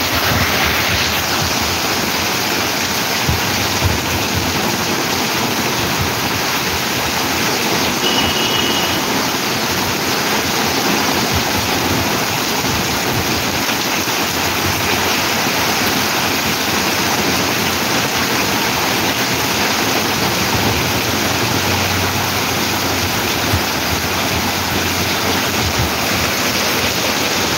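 Heavy rain pouring down in a steady, dense hiss, with rainwater running across the road.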